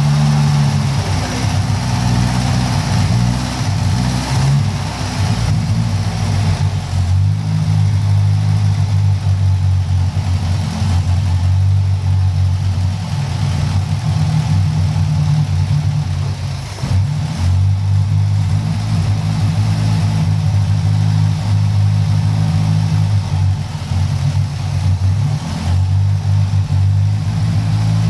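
Citroën B11's four-cylinder petrol engine running steadily, revs dipping and picking up again a few times. The engine is freshly brought back to life after standing for over 40 years.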